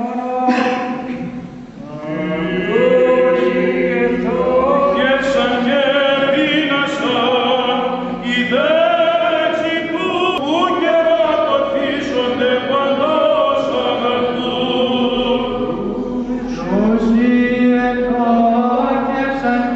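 Byzantine chant of a Greek Orthodox service: voices singing a slow, ornamented melody over a steady held drone note (ison), with a short lull about two seconds in.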